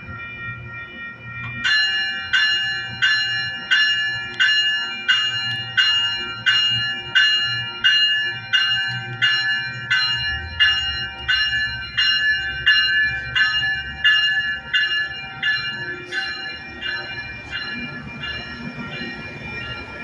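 Railway warning bell ringing about one and a half to two strikes a second, starting about two seconds in and fading near the end, after a steady high chord. Under it runs the low rumble of a passing Metrolink bilevel commuter train.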